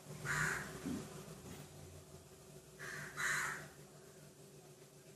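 A crow cawing: three harsh caws about two and a half seconds apart, over a faint steady low hum.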